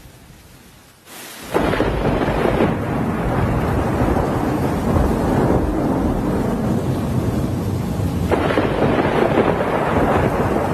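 Thunderstorm noise: a loud, steady rush of wind and rain with a deep rumble. It starts suddenly about a second and a half in and surges again near the end.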